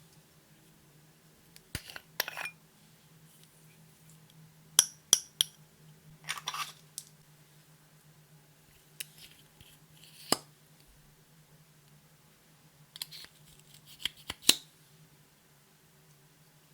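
Sharp clicks and clinks of small hard makeup containers and cases being handled, opened and set down, in short clusters a few seconds apart. The loudest clicks come about five seconds in and near the end, over a faint steady hum.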